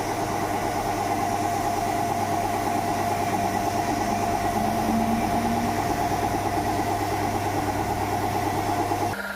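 A motor running steadily with a pulsing hum, cut off abruptly near the end and replaced by a different, quieter steady hum.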